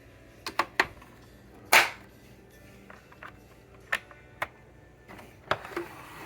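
A series of sharp clicks and knocks, several close together near the start and the loudest about two seconds in, over a faint hum with faint music underneath.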